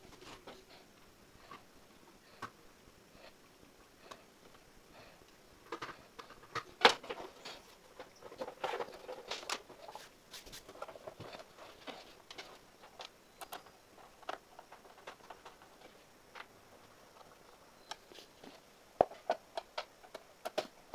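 Plastic casing of an induction cooktop being closed up and handled on a table: scattered clicks, taps and scrapes of plastic parts, one louder knock about a third of the way in, and a quick run of clicks near the end as the underside is fastened.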